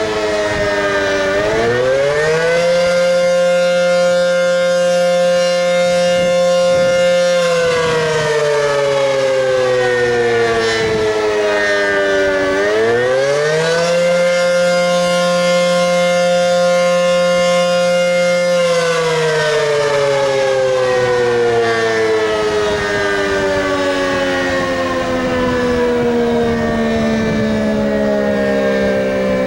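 ACA P-15 electromechanical tornado siren sounding a wavering attack signal. The pitch dips, winds up and holds high for about five seconds, then falls, winds up and holds again, and winds down over the last ten seconds. Its rotator is broken, so the horn does not turn and the loudness stays steady instead of swelling and fading.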